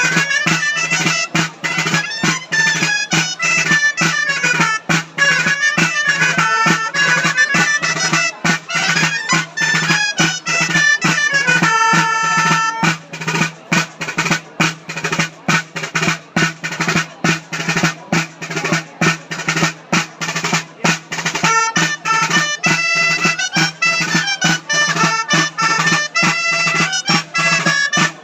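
Traditional folk dance music: a reedy wind instrument plays a quick melody over a steady low drone while a drum beats. About halfway through, the melody mostly drops out for several seconds and the drum carries on with rapid strokes, then the melody returns near the end.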